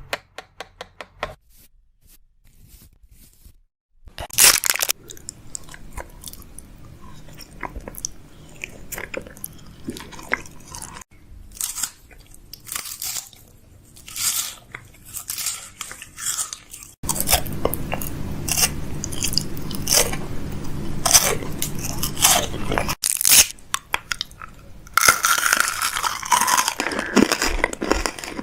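Close-miked crunching and crackling: many short, crisp clicks and crinkles, denser in the second half.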